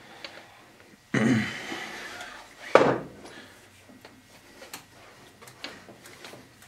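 Metal three-jaw lathe chuck being slid on a wooden caddy and fitted to the lathe's threaded spindle. A sliding scrape starts about a second in, a single heavy metal clunk comes near three seconds, and light clicks follow as the chuck is worked onto the spindle by hand.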